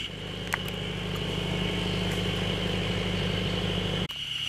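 An engine idling steadily, stopping abruptly about four seconds in, over a steady high insect drone.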